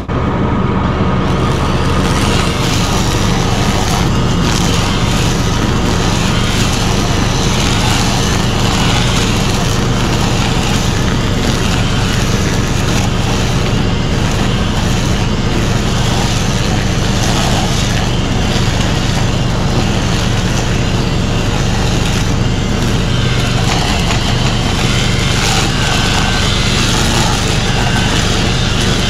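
Mahindra 1626 compact diesel tractor running steadily at working speed while cutting brush in a pasture.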